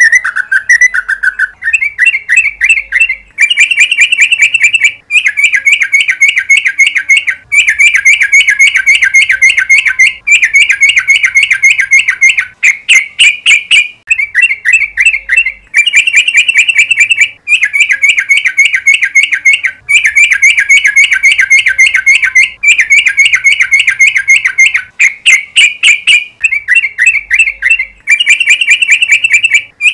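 Yellow-vented bulbul (cucak trucuk) singing its long, rapid-fire 'ropel' song: very fast runs of repeated chattering notes in phrases a second or two long, broken by short pauses.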